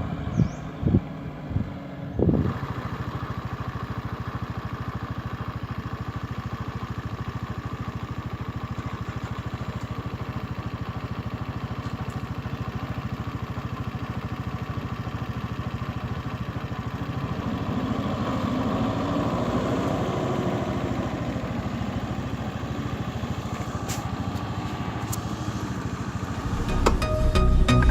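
A vehicle engine running steadily, with an even drone and fine rapid pulse throughout. Music comes in near the end.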